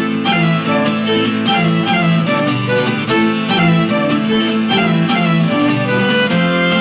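Instrumental break of an acoustic song: two violins bow a repeating melody over plucked string accompaniment.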